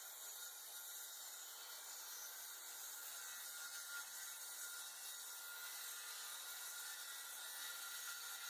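A saw cutting through plywood: a faint, steady hiss with a thin steady whine.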